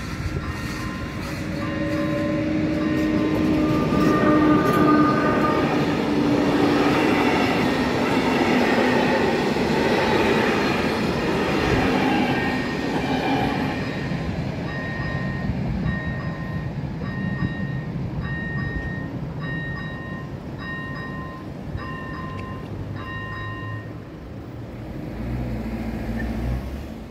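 A train passes over a level crossing, loudest in the first half, with some steady tones among the rail noise. As the train fades, the crossing's electronic warning bell is heard beeping in even pulses about once a second, then stops before the end.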